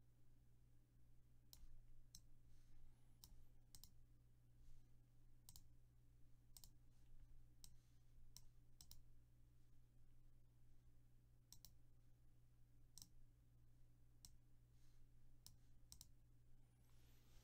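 Near silence with faint, irregular clicks, roughly one a second, over a low steady hum.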